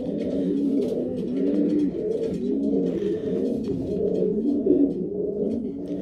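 Several racing pigeon cocks cooing to their hens in the nest boxes, many low coos overlapping with no break: widowhood cocks calling the hens.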